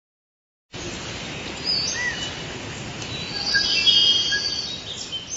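Outdoor ambience: birds chirping over a steady background hiss, starting a moment in and growing louder toward the end.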